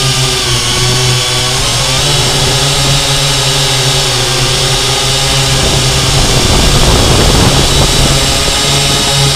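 Syma X8C quadcopter's four brushed motors and propellers whining steadily, heard up close from the camera mounted on the drone. The pitch dips briefly about two seconds in, and a rougher rushing noise joins for a couple of seconds near the end.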